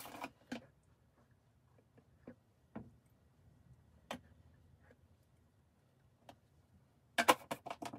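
A plastic liquid-detergent bottle and its cap handled over an open top-load washing machine: a few scattered light clicks and taps, then a louder clatter of knocks near the end.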